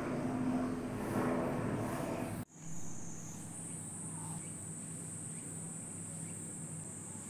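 A low, noisy rumble cuts off abruptly about two and a half seconds in. A steady high-pitched drone of summer cicadas follows, stepping slightly higher in pitch a second later, with a faint low hum beneath.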